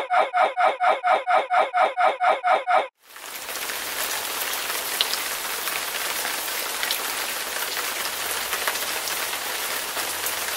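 A short "ruff" bark repeated in a rapid, identical loop, about five times a second, cut off suddenly about three seconds in. A steady hiss of rain follows.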